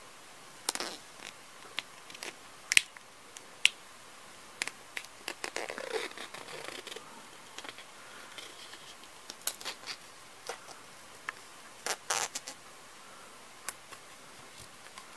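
Hands handling a small plastic toy sign piece while pressing and smoothing a sticker onto it: scattered light clicks, taps and short scrapes, with a few sharper clicks about three and four seconds in and a cluster near twelve seconds.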